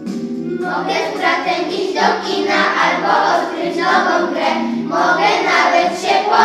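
A group of children singing a Polish song in unison over a backing track; the voices come in about half a second in, after a short instrumental phrase.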